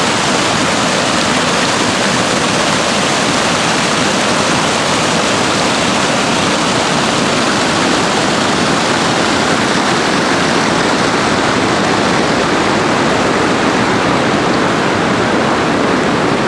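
Waterfall: water pouring and crashing in a loud, steady rush with no let-up.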